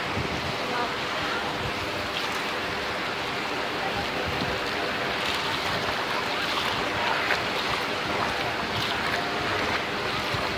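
Ocean surf washing through shallow water: a steady rush of breaking and swirling waves.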